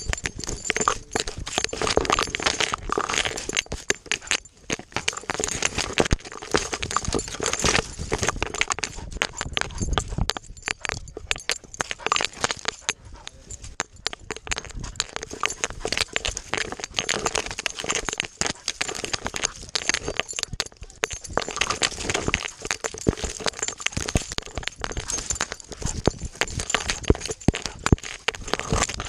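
A dog running through dry grass and reeds, heard right at the camera strapped to its chest: a constant jumble of quick paw footfalls and dry stalks brushing and scraping over the camera housing.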